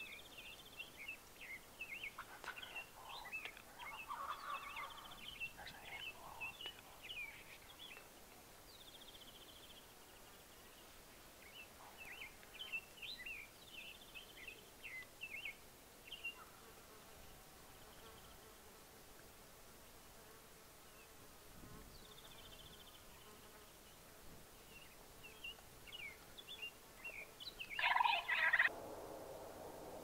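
Gould's wild turkey gobbling: one loud, short gobble near the end and a fainter one a few seconds in, with small birds chirping in the background.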